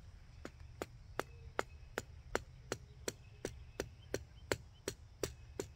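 A tent stake being pounded into the ground: a steady run of about fifteen evenly spaced knocks, nearly three a second, starting about half a second in.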